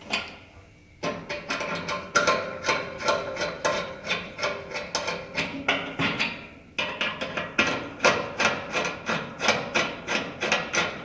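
Handheld Phillips screwdriver tightening stainless steel bolts into the hinge's rivet nuts on a grill: a rhythm of short metal-on-metal scraping twists, about two to three a second, with a brief pause about six seconds in.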